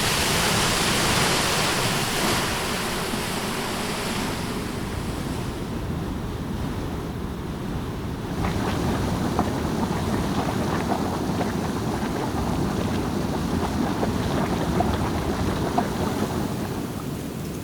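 Ocean waves washing ashore with wind. A loud hissing wash fades after about four seconds; from about eight seconds in, a lower surge of water carries many small scattered clicks.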